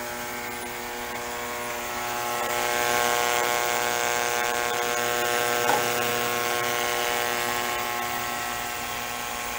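Vevor 15-litre digital ultrasonic cleaner running, its transducers agitating a tank of dark cleaning fluid: a steady buzzing hum with a hiss above it, growing louder about two seconds in.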